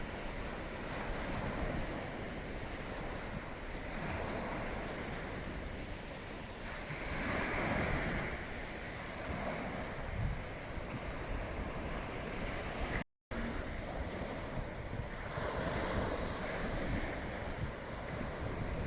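Waves washing onto the beach with wind buffeting the microphone, a steady rushing that swells about seven seconds in. The sound cuts out for a split second near the thirteen-second mark.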